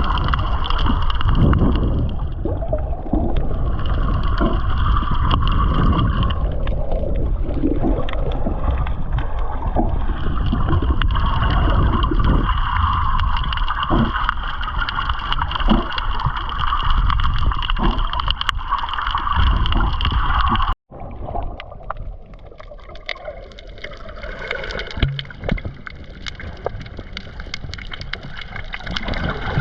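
Water churning and gurgling around a camera held in the sea while snorkeling, over a heavy low rumble and a steady high hum. The sound breaks off abruptly about two-thirds of the way through and resumes quieter.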